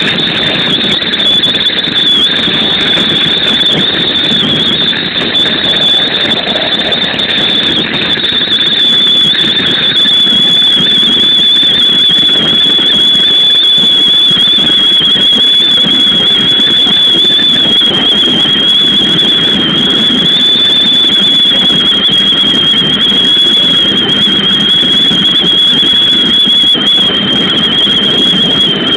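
Keikyu New 1000 series train running at speed, heard from the front of the car: a loud, steady rush of wind and running noise. A thin, steady high whistle sits over it throughout.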